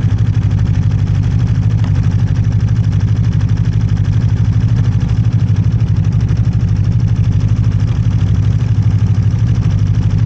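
Snowmobile engine running steadily at an even pitch, close and loud, with no revving.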